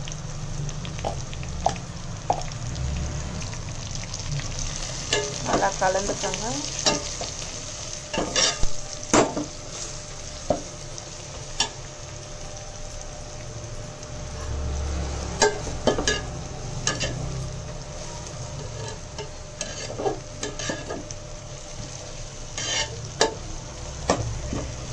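Onions, mint and coriander frying in oil in a steel pot, a steady sizzle, while a slotted steel spatula stirs them, with irregular clinks and scrapes of metal on metal.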